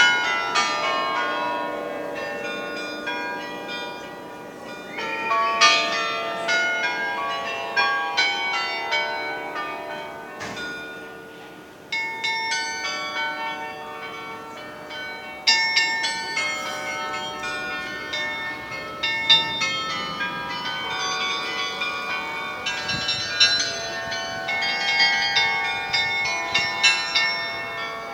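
Church-tower carillon playing a melody: many tuned bells struck in quick succession, their tones ringing on and overlapping. The playing thins out briefly about two-fifths of the way through, then comes back stronger.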